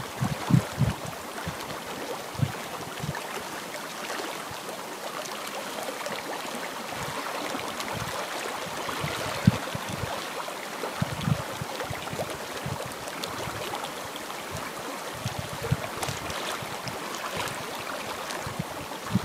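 Lakeshore ambience: a steady rush of wind and lapping water, broken every few seconds by low thumps of wind buffeting the microphone.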